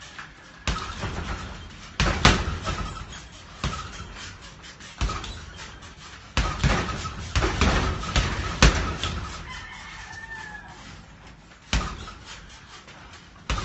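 Gloved punches landing on a hanging heavy bag: irregular single and double thuds, roughly one every second or so. A rooster crows faintly about ten seconds in.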